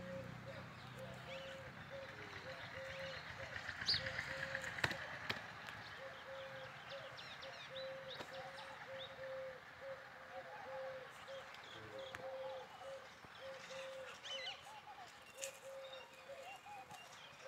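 Birds calling: one bird repeats a single hooting note about twice a second throughout, while smaller birds chirp now and then at a higher pitch.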